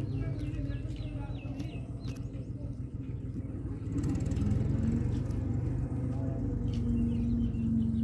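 A steady low rumble that grows louder about halfway through, joined by a steady hum. Over it, a small bird gives quick series of chirps near the start and again near the end.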